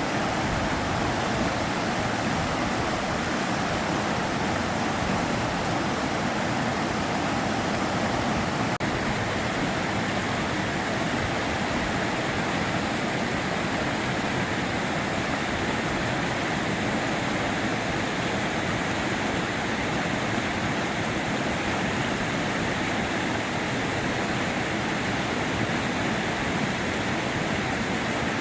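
Sava River flowing, a steady, unbroken rush of water.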